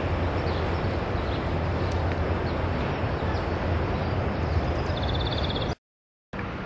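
Outdoor ambience: a steady low rumble with faint bird calls above it. It cuts off abruptly to silence near the end.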